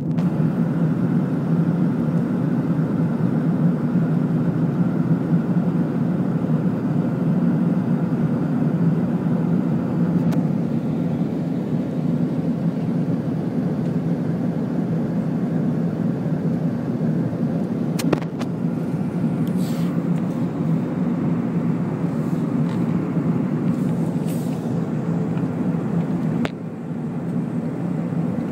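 Steady airliner cabin drone of engines and airflow, heard at a window seat, low and unbroken. A sharp click comes about two-thirds of the way through, and the drone drops a little near the end.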